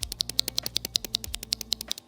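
Fast, continuous typing on a mechanical keyboard with Kailh Red linear switches: a quick stream of sharp keystroke clacks, well over ten a second.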